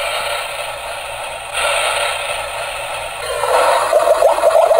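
Toy kitchen stove's electronic cooking sound effect through its small speaker: a hissing sizzle, then from about three seconds in a rapid bubbling of short rising blips, the toy's boiling sound.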